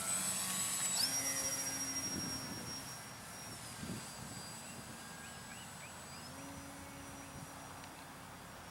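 Electric motor and propeller of a Tower Hobbies Millennium Master EP RC plane whining in flight. The pitch steps up about a second in, dips around three seconds and rises again near six seconds as the throttle changes, growing fainter toward the end.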